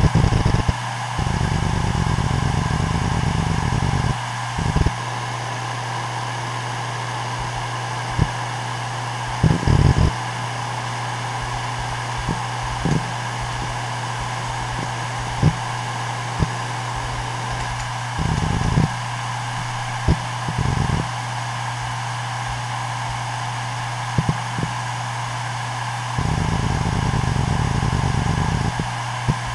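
Toshiba P300 HDWD130 3TB 7200 rpm hard drive spinning with a steady hum, its heads seeking under random read/write and file-access load. The seeks come as rapid clicking chatter over the first few seconds and again near the end, with short bursts and single clicks between.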